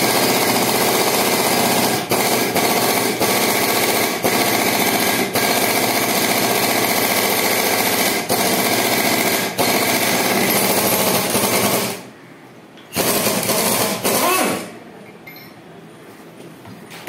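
A loud, rattling machine running steadily with a few brief dips, stopping about twelve seconds in, then one more short run a second later.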